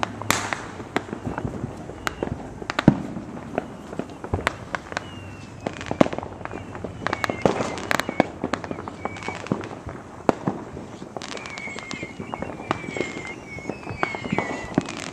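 Fireworks going off: a steady scatter of sharp pops and bangs, many close together, with thin falling whistles in the second half.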